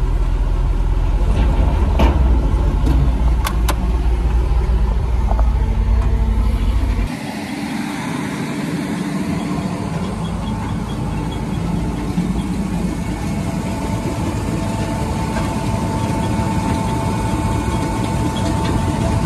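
Tractor diesel engine running, heard inside the loader tractor's cab as a heavy low rumble, with a few sharp knocks of stone. About seven seconds in it gives way to the steadier, quieter running of the tractor-driven Herbst concrete crusher, with a steady whine joining about halfway through.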